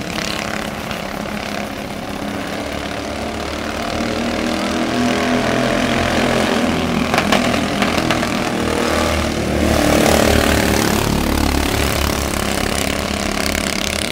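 Several mini cup race cars' engines running hard around a small oval, the pitch shifting as they go, growing loudest about ten seconds in.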